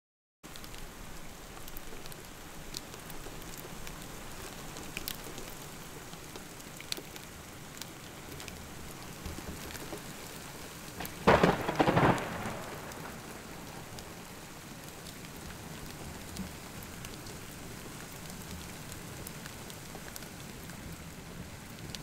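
Steady rain falling, with scattered drops ticking, and a single clap of thunder about halfway through that cracks twice and rumbles away over a second or so.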